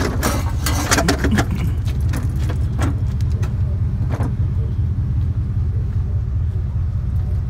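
Steady low rumble of a vehicle running, with a burst of metallic clinks and jangles in the first second and a half and a few more about three and four seconds in.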